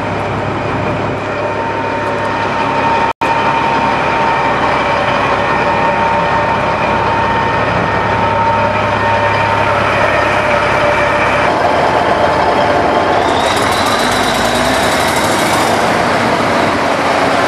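Caterpillar 3406 inline-six diesel running steadily on a horizontal grinder, with a sudden brief dropout a few seconds in. From about two-thirds of the way through, the sound changes: a higher hiss and a slowly rising tone join the engine.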